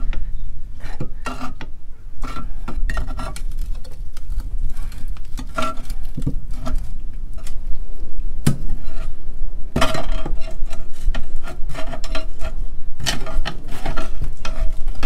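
Repeated metallic clinks, knocks and scrapes as a corroded captain's chair seat plate is pried and worked loose on its pedestal post, the strikes ringing briefly. The clinking grows busier and louder from about ten seconds in.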